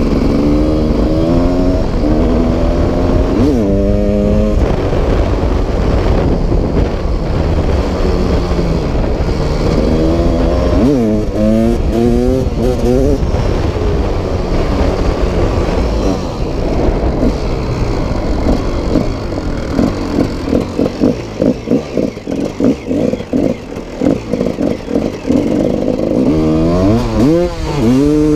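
Dirt bike engine on the move, revving up through the gears in repeated rising sweeps over a constant low rumble. In the later part the engine sound comes in choppy pulses, about two a second, before another climbing rev near the end.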